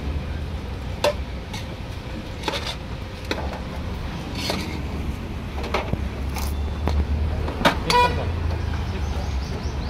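Steady low traffic rumble with scattered clinks of steel serving spoons against steel pots and plates, and a short vehicle horn toot about eight seconds in.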